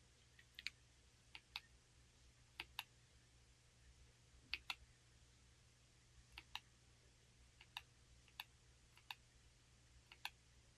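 Slow, sparse typing on a Corne split mechanical keyboard: short sharp key clicks about once a second, often two close together.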